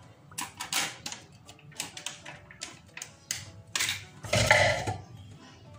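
Handling of a plastic tub of soft cream cheese as it is opened by hand: irregular crackles and clicks as its foil seal is peeled back, then a louder, longer rustle and knock about four and a half seconds in.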